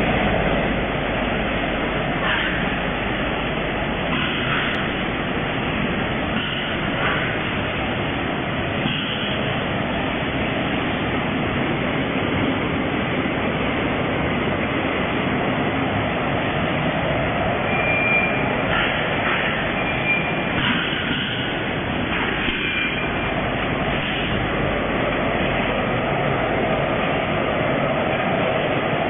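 Steady mechanical din of an automatic vertical powder-packing line running, with scattered clicks and a few short high tones past the middle.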